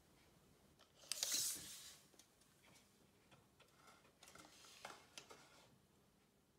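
Steel tape measure being pulled out and handled: a short rasping burst about a second in, then a few soft clicks and scrapes.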